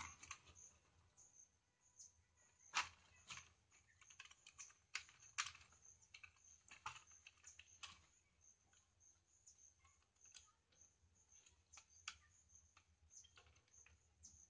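Faint, irregular small clicks and taps as hands fit a wire onto the terminals of a switchboard's socket and switch; the sharpest come about three, five and eight seconds in.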